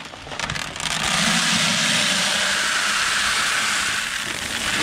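Dry whole-kernel corn pouring from a bag into a plastic bucket: a few rustles of the bag, then from about a second in a steady rushing hiss of kernels rattling into the bucket.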